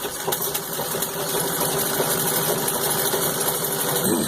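Treadle-driven 1914 Singer 66-1 sewing machine running at full speed, stitching through six layers of denim without skipping. The steady rapid stitching stops near the end.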